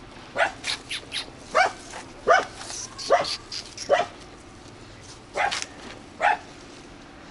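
Dog barking repeatedly: short, sharp barks at an irregular pace, a few in quick succession then more spaced out.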